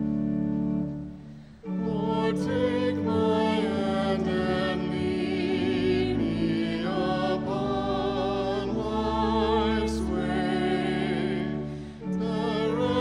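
Sacred vocal music in a worship service: keyboard chords, then from about two seconds in a voice or voices singing with vibrato over the keyboard accompaniment, with a short break between phrases near the end.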